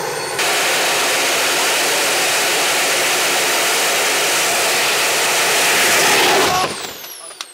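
Small turbojet engine running: a loud, even rushing roar that starts abruptly about half a second in. About six and a half seconds in it cuts back, and its high turbine whine falls in pitch as it spools down.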